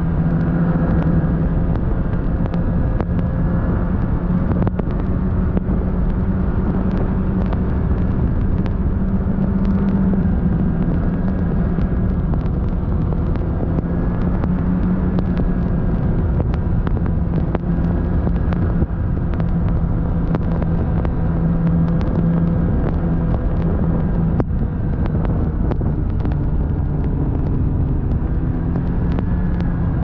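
Vehicle engine running at a steady cruise, a constant drone that holds its pitch, with the rush of wind and travel noise over the microphone.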